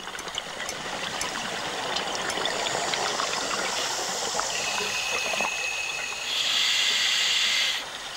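Water trickling and bubbling, with many small ticks, and a louder rush of hiss about six seconds in that lasts over a second.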